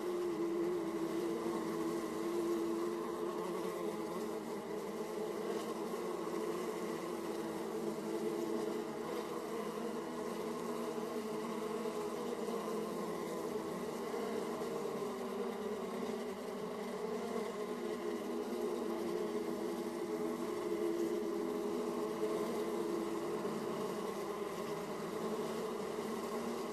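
Honey bees buzzing at a hive entrance: the continuous hum of many bees flying in and out, steady with slight swells.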